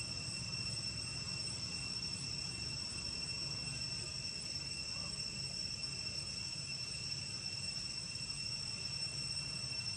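Steady, high-pitched drone of insects in the forest, several unbroken tones held throughout, over a faint low rumble.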